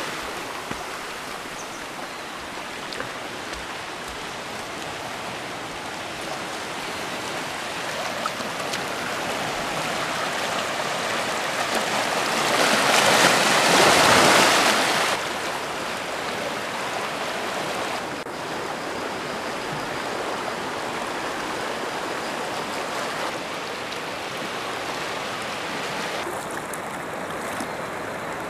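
Sea surf washing steadily against shoreline rocks at high tide. About halfway through it swells to a louder wash, then drops back suddenly.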